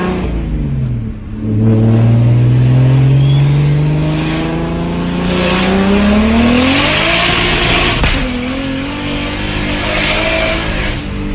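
Car engine accelerating hard, its pitch climbing steadily for several seconds, then dropping suddenly about eight seconds in as it shifts gear. A loud rushing noise sits over the engine in the second half.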